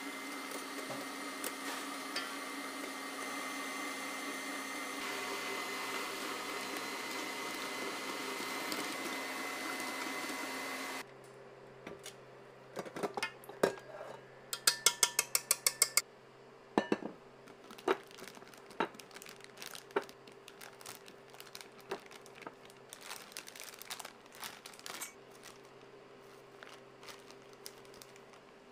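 KitchenAid stand mixer running steadily as it whips meringue, its sound shifting about five seconds in and cutting off abruptly about eleven seconds in. Scattered sharp clicks and taps of the metal wire whisk and bowl follow, with a quick run of about a dozen taps, over a faint hum.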